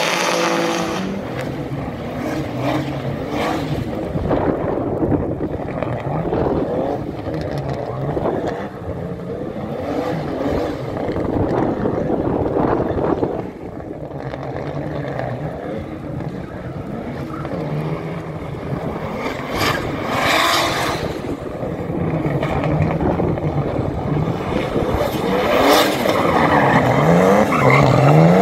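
BMW E46 rally car's engine racing hard, its pitch rising and falling over and over as the driver revs and shifts. There is a sudden change about halfway through as one run cuts to another.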